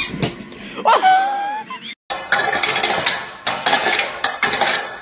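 A metal dog bowl clattering and scraping on brick pavers as a puppy pushes it along, in quick uneven clangs that start about two seconds in. Before that comes a short, loud, wavering cry.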